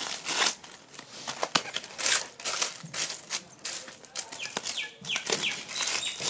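Clear plastic film crinkling and rustling in irregular bursts as it is folded and pressed tight around a cardboard fireworks box.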